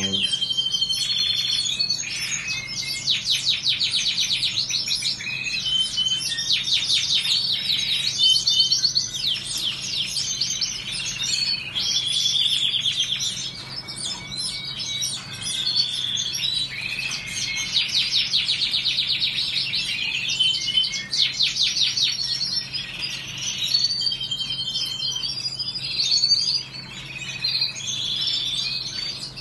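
Canary singing a long, continuous, high-pitched song of fast trills and rolling runs of repeated notes mixed with warbled phrases, with only brief breaks between phrases.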